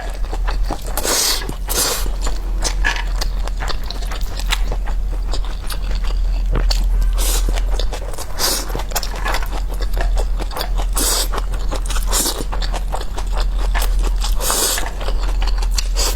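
Close-miked eating: repeated crunchy bites and chewing with irregular clicking and scraping, over a steady low electrical hum.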